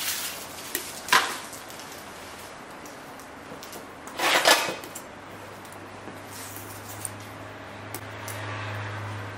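Metal clinks and knocks: a sharp one about a second in, then a louder half-second scraping clatter about four seconds in, with a low hum coming in after five seconds.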